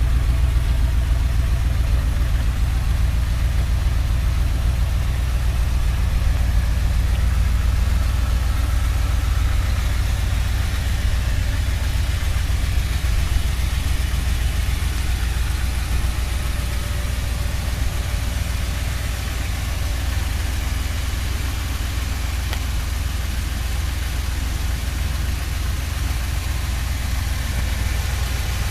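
An engine idling steadily: an even, low rumble that does not change.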